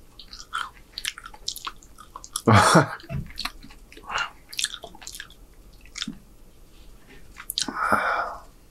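Close-miked mouth sounds of a man chewing hamburger steak in gravy: many short wet clicks and smacks. There is a louder noisy sound about two and a half seconds in and another near the end.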